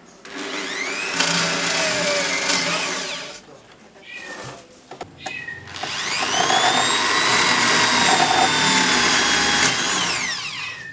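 Corded electric drill running twice for a few seconds each, boring into a painted wooden panel; each time the motor's whine rises in pitch as it spins up and falls as it stops.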